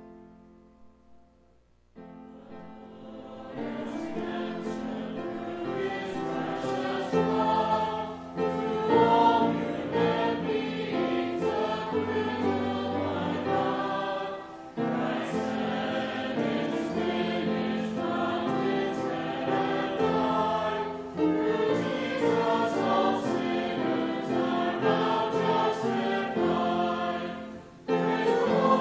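Choir singing a hymn verse, entering about two seconds in and moving through phrases with brief breathing breaks between them.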